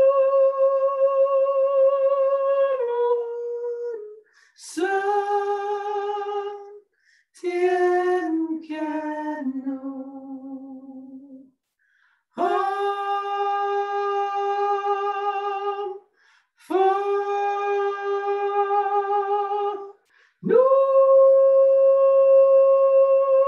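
A woman's voice sings long wordless notes a cappella, each held for a few seconds with a light vibrato and short breaths between them. About a third of the way in, a phrase steps down lower in pitch before the high held notes return.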